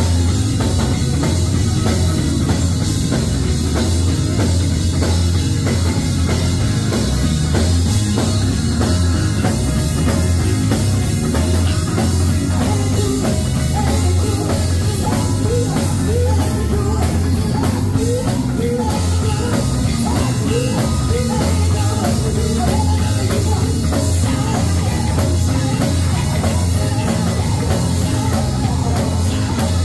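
Live band playing an up-tempo rock-style groove: drum kit, electric guitar and bass guitar, loud and steady, with a run of short rising notes about halfway through.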